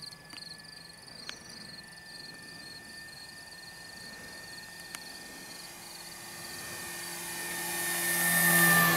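Electric RC model plane (E-flite Cessna 150 Carbon-Z) flying past overhead: its motor and propeller whine grows steadily louder, peaks near the end and dips in pitch as it passes. Insects chirp in a quick pulse in the background early on.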